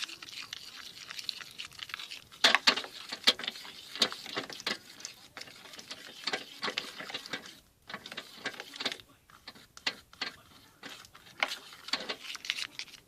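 Slime being stirred in a container, the mixing utensil clicking and tapping against it in quick, irregular strokes, loudest a few seconds in, with a brief pause about halfway.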